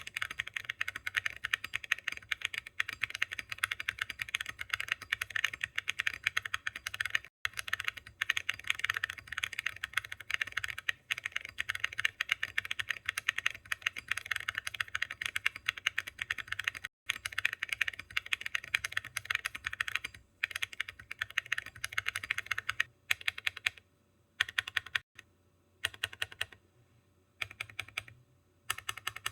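Typing on a mechanical keyboard fitted with Awekeys Viking Antiques all-metal keycaps. A fast, continuous run of keystrokes breaks up in the last third into short bursts with brief pauses between them.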